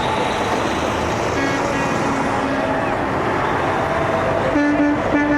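Vehicle horns honking over a steady wash of traffic and crowd noise, with a quick run of short blasts near the end.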